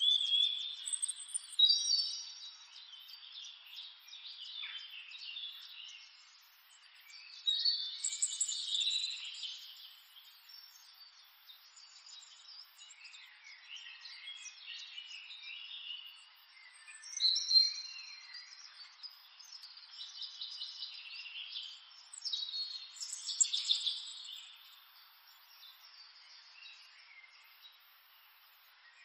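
Birds chirping and calling in bursts every several seconds, high and thin, with quieter stretches between.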